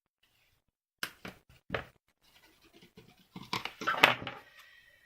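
Cardstock and small craft pieces handled on a tabletop: a few sharp taps and clicks, then a burst of scraping and rustling about three and a half seconds in.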